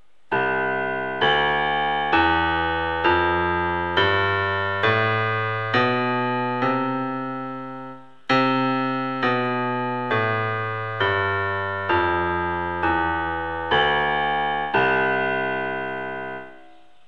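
Portable electronic keyboard in its piano voice playing a slow, even run of two-handed chords, about one a second, each fading before the next is struck. The chords come at the same loudness while the notes change, in two phrases with a short break about eight seconds in.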